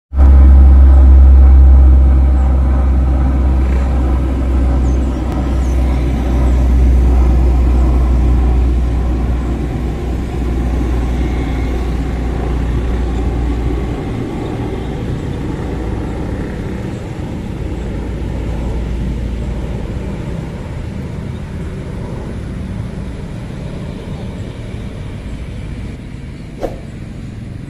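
Engines of a propeller transport airplane flying overhead: a deep rumble with a steady droning hum over it, growing fainter as the plane moves away.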